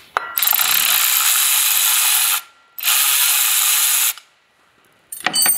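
Cordless 3/8-inch ratchet running in two spells, about two seconds and then just over a second, backing out the weight pin bolts on a snowmobile's P22 primary clutch. A few sharp metallic clicks follow near the end.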